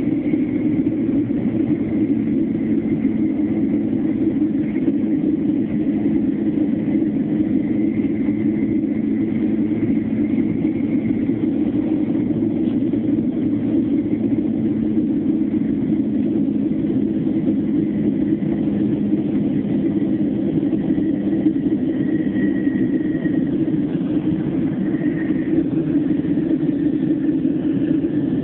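Jet airliner's engines heard inside the passenger cabin as a steady low drone, with no change in level.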